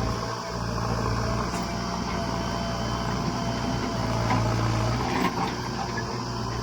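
Heavy diesel engine running steadily at an even speed: a constant low hum with a steady higher whine over it and a few faint knocks.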